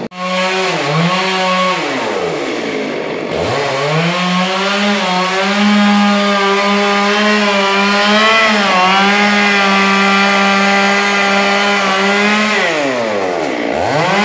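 Gasoline chainsaw running at full throttle, as in a long cut through the log. Twice its revs fall away toward idle and climb back up: once about two seconds in and again near the end.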